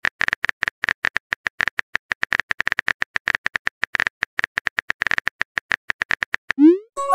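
Synthetic phone-keyboard tap clicks in a quick, even run as a text message is typed. Near the end a short rising swoop sounds as the message is sent, and a chime of a few tones starts.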